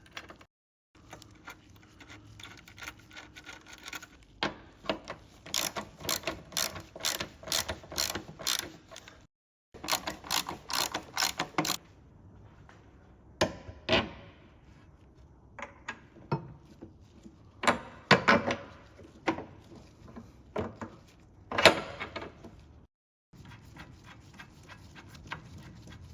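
Hand tools working on a car's underbody: runs of sharp metallic clicks, like a ratchet spanner being worked, then a few separate louder knocks. The footage is edited, so the sound drops out briefly a few times.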